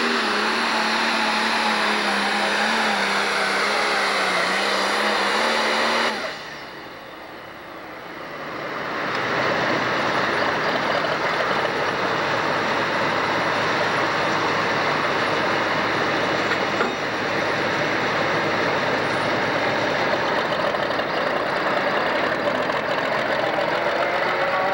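Single-turbo pro stock pulling tractor engine running flat out under load while dragging the sled, with a steady engine drone. About six seconds in it cuts off abruptly, then another pulling tractor's engine builds to full throttle within a few seconds and runs on loud and steady.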